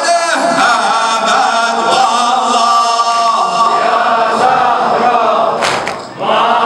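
Male voices chanting a Muharram lament in long, wavering held notes, with a brief break about six seconds in before the chant resumes.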